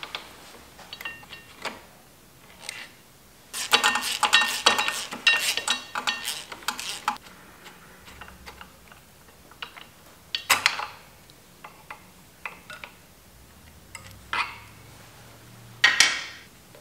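Socket ratchet clicking as bolts on a motorcycle's front fork are worked loose, with metallic clinks of tool and parts. The loudest, densest run of clicks comes about four seconds in and lasts about three seconds; shorter bursts follow.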